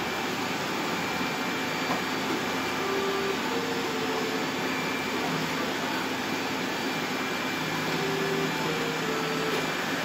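Many robot vacuums running at once, a steady combined whirring of their motors. A couple of short steady tones rise above it, about three seconds in and again near the end.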